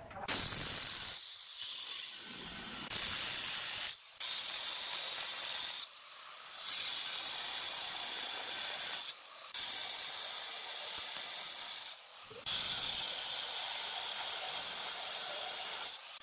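Handheld angle grinder cutting into a granite slab, a steady high grinding hiss that breaks off briefly about four times.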